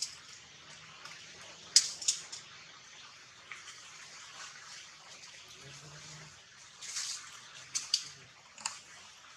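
Short, sharp crackles and snaps of leaves and twigs as a macaque shifts and feeds in a leafy tree. There are two about two seconds in and a quick cluster of several near the end.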